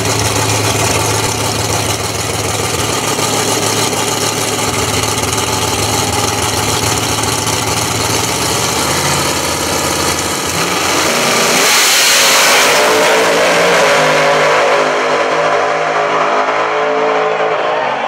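Two drag-racing cars, a Ford Thunderbird and a Fox-body Mustang, idling loudly and steadily at the starting line. About eleven seconds in the engines rev up in a rising sweep and launch with a loud rush of noise, then run hard down the track, their pitch stepping through the gears.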